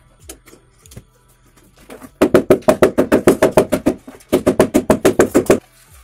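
Background music with rapid drum strokes, about eight a second, in two loud runs of more than a second each, starting about two seconds in. Before them come a few faint knocks.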